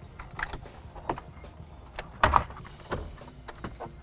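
Several sharp plastic clicks and clacks from a dashboard screen bezel and its wiring connectors being handled and unplugged, with one louder clack about two seconds in.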